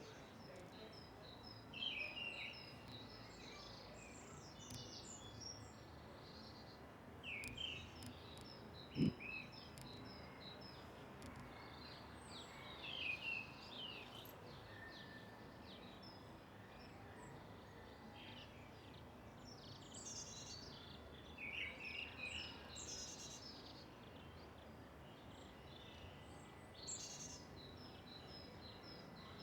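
Park ambience: small birds chirping and trilling on and off over a steady low background rumble, with one short low knock about nine seconds in.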